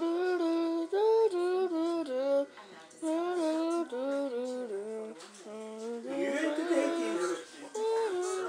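A high-pitched voice singing a tune in short phrases, with no instrumental backing, and a brief raspy noise layered over it about six seconds in.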